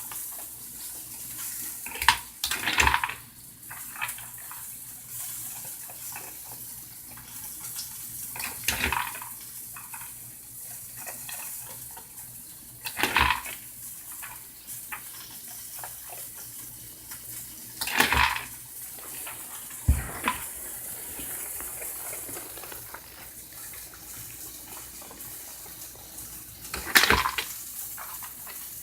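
Water splashing in about six short, sudden bursts over a steady faint hiss.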